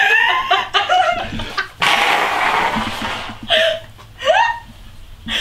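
Two young women laughing helplessly: giggles and short rising squeals, with a hiss lasting about a second about two seconds in.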